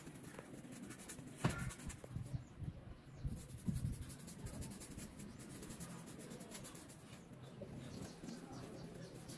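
Paintbrush scrubbing and dabbing paint onto a rough plastered wall in short, irregular scratchy strokes, with a sharp knock about a second and a half in.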